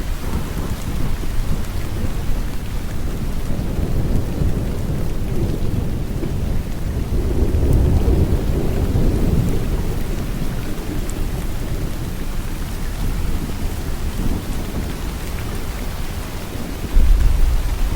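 Steady heavy rain with low rolling thunder underneath. The rumble swells a little past the middle and jumps louder suddenly near the end.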